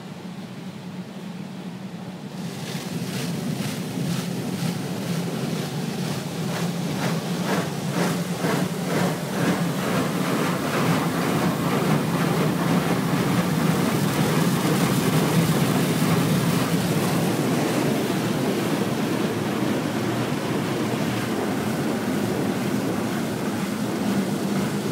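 Automatic car-wash brushes spinning against the car while water sprays over the body and glass, heard from inside the car: a dense rushing wash with a rapid, rhythmic slapping of the brush strips. It swells about two and a half seconds in, over a low steady hum.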